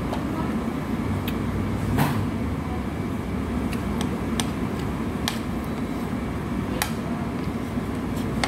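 Steady hum of a restaurant dining room, with a few sharp clinks of a fork against a plate scattered through it.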